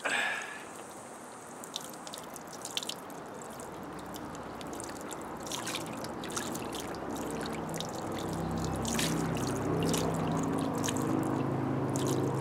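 Muddy water sloshing and trickling as a hand stirs fine slimes concentrate in a large gold pan, with small splashes. A low steady hum comes in about halfway through, and the sound grows louder toward the end.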